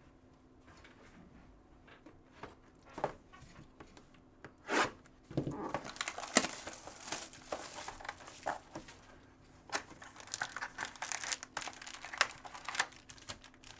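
Plastic wrapping on a box of football trading cards being torn open and crinkled: a few sharp clicks at first, then about eight seconds of crackling with many sharp snaps.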